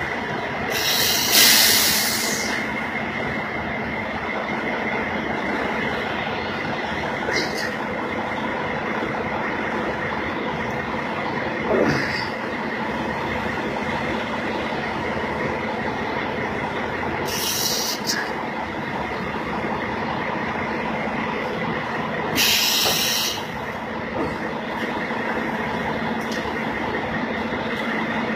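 Steady drone of an idling heavy diesel truck engine, broken by a few short hisses, the longest about a second in and two more near the end.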